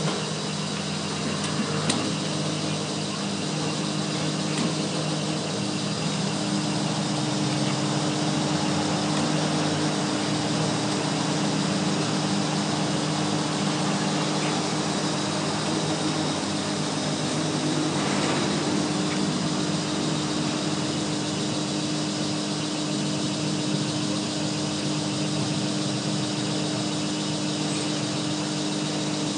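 Petrol pump dispenser running steadily as fuel flows through the nozzle into the car, a constant mechanical hum with a few low steady tones. A sharp click sounds about two seconds in.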